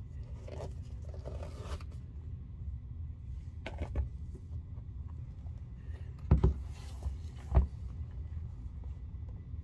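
Nitrile-gloved hands handling white leather sneakers: soft rustling and a few light clicks, then two thumps, about six and seven and a half seconds in, as the shoes are set down on the tabletop.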